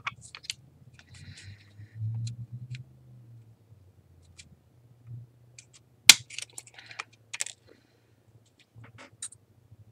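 Plastic clicks and taps from an opened multimeter's case and display assembly being handled and pressed together, with one sharp click about six seconds in followed by a few smaller clicks.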